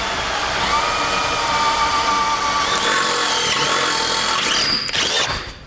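Handheld electric drill boring a half-inch hole through the metal bumper beam, its motor whining steadily under load, then stopping shortly before the end.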